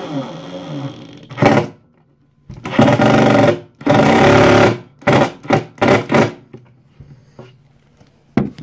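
Power drill driving screws into a wooden board to mount a closet-pole holder plate. The motor's pitch winds down early on, then comes two runs of about a second each and four short trigger bursts.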